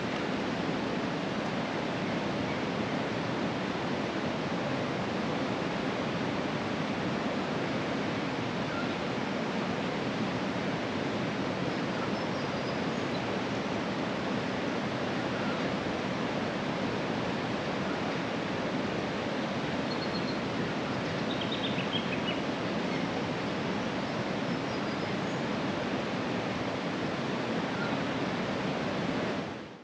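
Fast-flowing river running high, a steady rushing of water with no let-up.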